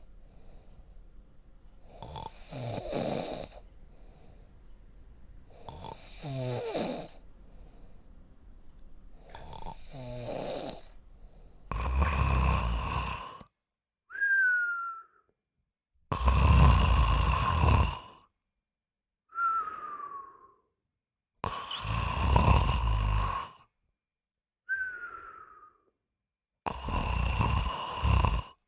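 Human snoring: slow, rumbling snores about every four seconds. About eleven seconds in, these give way to louder, rasping snores, each followed by a short whistle that falls in pitch, repeating about every five seconds.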